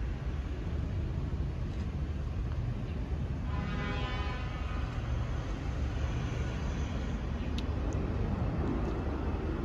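Airbus A321 airliner with IAE V2500 turbofans climbing out after takeoff, heard from the ground as a steady low jet rumble. A brief whining tone rises over it about four seconds in.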